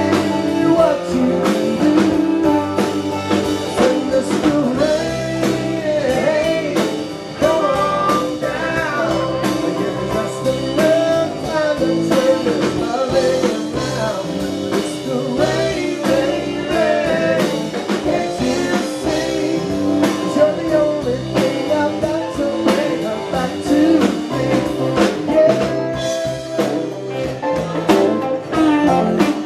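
A live band playing a song, with acoustic and electric guitars, upright bass and drum kit, and singing at times.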